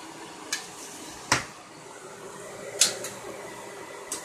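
A few sharp clicks and knocks from handling at a kitchen stove and oven, over a steady hum.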